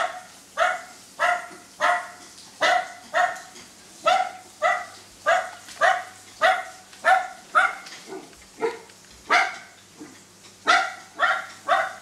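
Recorded dog barking played through a Bluetooth speaker: a long, evenly paced run of short barks, about two a second, with a brief pause later on.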